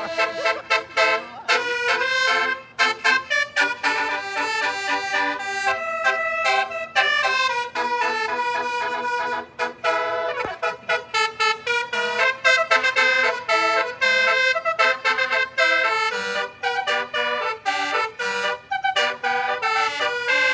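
Bus 'telolet basuri' multi-trumpet air horn playing a melody: a quick run of changing notes, many cut short, with brief breaks between phrases.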